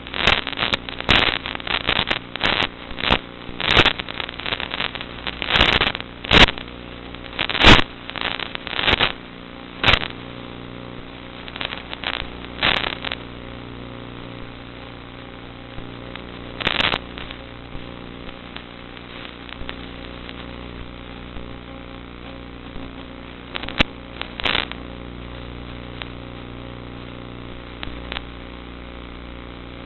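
Zagi flying wing's electric motor and propeller running steadily, heard through the onboard FPV camera's microphone with a narrow, muffled sound. Frequent sharp crackles break in, many in the first half and a few later.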